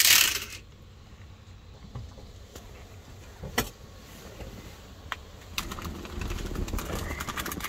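Dishes and utensils handled while a meal is laid out: scattered clicks and clinks, a sharp knock a few seconds in, and busier clatter near the end. A brief loud rush of hiss opens it.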